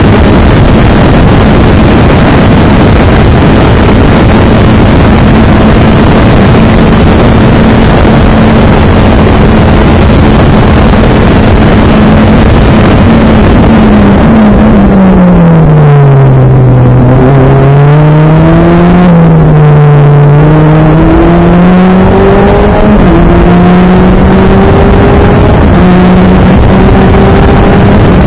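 Super FJ formula car's 1.5-litre Honda four-cylinder engine at racing speed, heard from inside the driver's helmet over heavy wind rush. It holds high revs for the first half, then the revs drop sharply and dip twice as the car slows for corners, and climb again in steps through the upshifts near the end.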